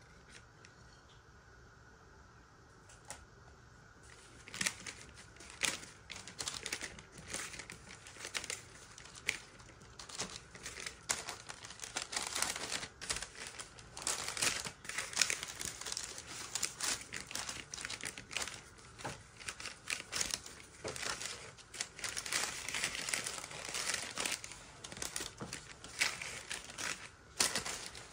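Baking paper rustling and crinkling as hands work it around pide dough in a round tray, in quick irregular crackles starting about four seconds in.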